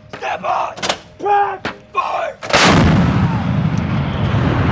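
M777 155 mm towed howitzer firing one round about two and a half seconds in: a sudden loud blast followed by a long, low rumble.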